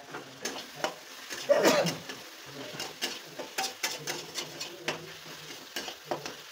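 A metal spatula scraping and knocking against an aluminium kadai as tomatoes are stirred into onion masala. It makes an irregular run of short, sharp scrapes and clinks, with one louder stroke about a second and a half in.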